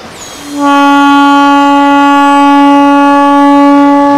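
A boat horn sounding one long, loud blast at a single steady pitch, lasting about four seconds.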